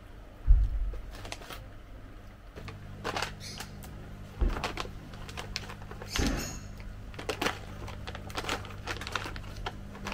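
Plastic snack bag of banana chips crinkling and crackling as it is handled and pulled open, in scattered sharp clicks. A low thump about half a second in, and a steady low hum comes in after about two and a half seconds.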